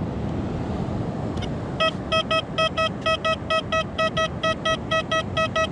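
Metal detector beeping: a steady-pitched electronic tone pulsing rapidly, about five beeps a second, often in close pairs, starting about two seconds in, over wind and surf noise.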